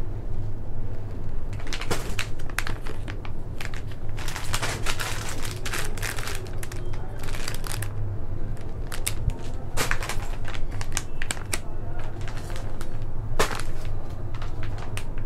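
Irregular rustling and clicking of items being handled, over a steady low hum.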